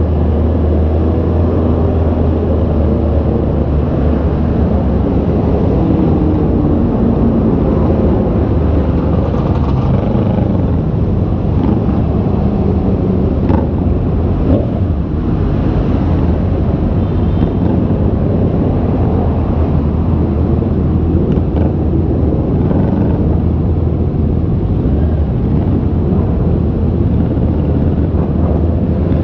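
Honda CB650R's inline-four engine running while the bike is ridden, its note shifting with the throttle, over a steady low rumble.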